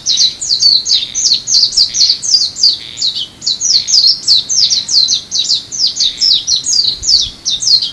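Japanese white-eye (mejiro) singing a rapid, unbroken twittering song of short, high, falling notes, about five a second, that cuts off at the end.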